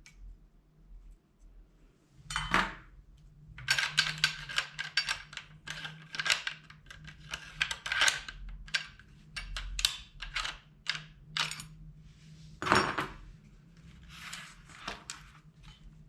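Steel parts of an E&L AK-74 airsoft replica being taken apart by hand: quick metallic clicks, clinks and scrapes as the receiver cover, spring and charging handle are worked loose, with two longer scrapes, one near the start and one about two-thirds through. A faint steady hum runs underneath.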